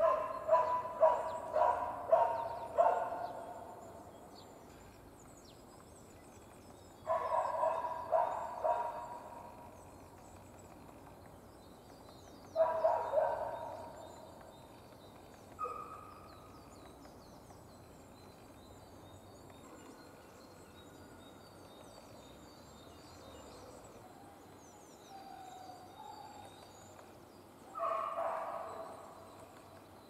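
Bark-like animal calls, several in quick succession, coming in bouts: at the start, around seven and thirteen seconds in, once near sixteen seconds, and again near the end.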